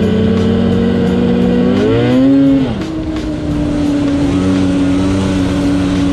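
Polaris 850 Switchback Assault snowmobile's two-stroke engine running under way: a steady note that creeps up, revs higher about two seconds in, drops sharply as the throttle comes off, then holds a steady lower note.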